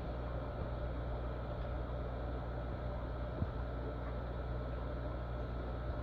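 Steady low hum with an even hiss from running aquarium equipment, with one faint click about three and a half seconds in.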